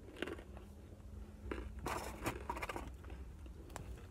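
Quiet eating sounds: chewing, with scattered small scratches, scrapes and clicks as fried chicken and fries are handled and picked up.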